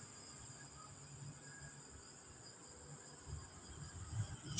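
Faint steady insect chirring in the background, like crickets, over a quiet low hum.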